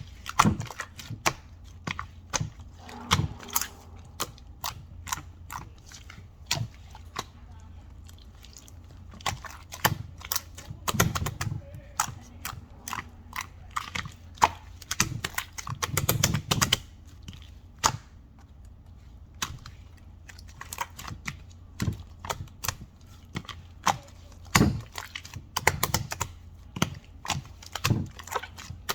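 Typing on a keyboard: irregular runs of sharp key clicks, with a few duller thumps and a steady low hum underneath.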